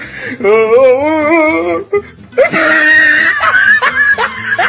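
A loud human voice: first a drawn-out wail with a wobbling pitch, then, after a short break, a shrill scream with falling cries.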